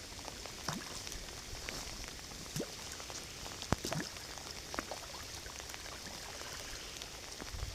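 Pouring rain: a steady hiss of rainfall with scattered, irregular sharp ticks close by.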